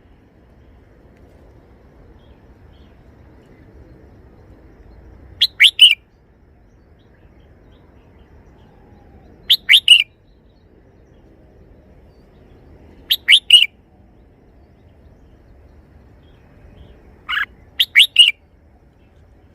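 Red-whiskered bulbul singing its three-syllable song: four short, loud phrases of about three quick whistled notes each, a few seconds apart, over a faint low background hum.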